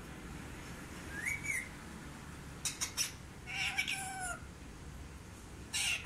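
Indian ringneck parakeet calling: a short rising-and-falling whistle, two sharp clicks, then a drawn-out call that rises and falls, and a loud harsh note near the end.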